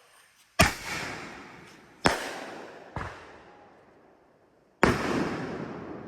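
Four firework explosions, the first about half a second in and the last near the end, each a sharp bang trailing off in a long fading echo; the third is weaker than the others.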